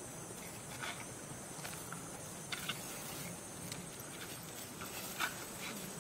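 Scattered light crackles and rustles of dry leaf litter under macaques moving and handling fruit, a few short ones spread through, the sharpest about five seconds in, over a steady high hiss.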